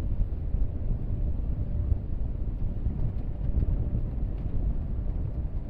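Steady low rumble of a pickup truck heard from inside its cab, idling or creeping slowly, with a faint steady hum.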